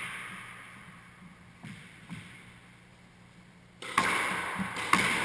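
Squash ball struck hard twice near the end, about a second apart, each sharp crack ringing on in the bare walled court. A couple of light taps come earlier.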